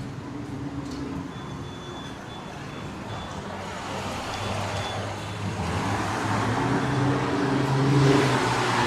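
Downtown street traffic: a motor vehicle's engine comes closer and grows louder, loudest near the end, over a steady background of traffic.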